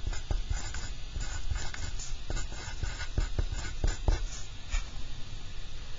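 A wooden pencil writing on a sheet of paper: irregular scratching strokes and short ticks of the lead as letters are formed.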